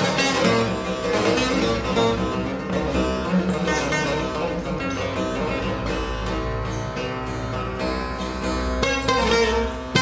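A divan sazı, a large long-necked bağlama with a bowl carved from mulberry wood, played solo: quick plucked strokes over ringing strings, with a denser, louder run of strokes near the end.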